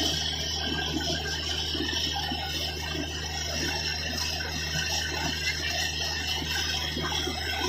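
Borewell drilling rig running with a steady low drone, while water and mud blast out of the bore head and splatter against a cloth held over it, a continuous hiss and spatter.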